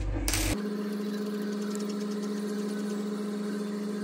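A brief clatter, then a steady hum at one unchanging pitch that starts abruptly about half a second in and holds to the end.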